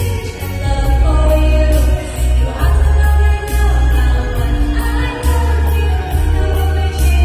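Amplified pop song with a singing voice over a heavy, sustained bass line and a regular hi-hat beat.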